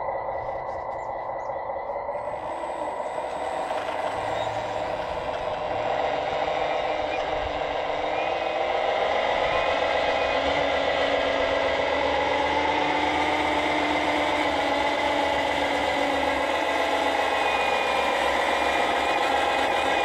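Electric motors and gearing of a radio-controlled Komatsu WA470 model wheel loader and its mower attachment running: a steady whine with rattle that gets louder about two seconds in and again a few seconds later as the model drives off, the pitch wavering a little midway.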